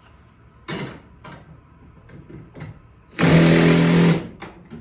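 Power driver spinning a 14 mm socket on a garage door torsion spring's center-bracket bolt in one loud burst of about a second, a steady motor whine over rattling noise, after a brief knock near the start; the bolt is holding tight.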